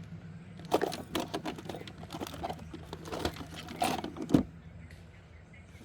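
Irregular clicks and knocks of an air rifle being handled and readied for a trigger-pull test, ending in one sharper knock about four seconds in, over a steady low hum.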